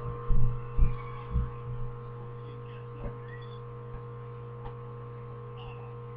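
Steady electrical mains hum, with a few low thumps in the first two seconds and faint scattered clicks after.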